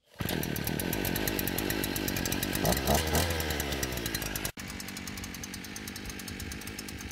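Small two-stroke engine of a Zipper ZI-GPS182J brush cutter running steadily, briefly louder about three seconds in. It cuts out for an instant about four and a half seconds in, then runs on a little quieter.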